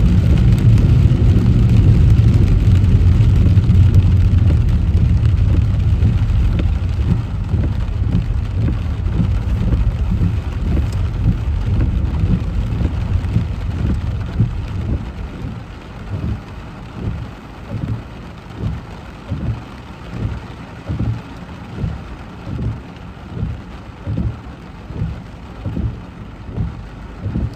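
Inside a car driving in heavy rain: a steady low road-and-tyre rumble with rain noise, which fades over the first quarter of a minute as the car slows. Then a regular low thump about once a second sounds over the softer hiss of rain.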